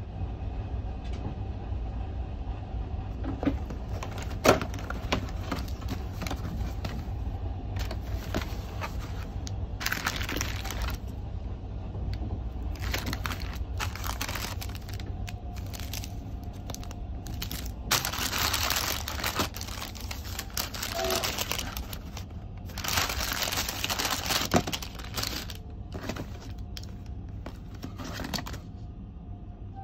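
Cardboard breakfast box and its paper wrapping rustling and crinkling in several bursts as it is opened and unpacked by hand, with a sharp click about four seconds in. Beneath it, the steady low rumble of the sleeping car running on the rails.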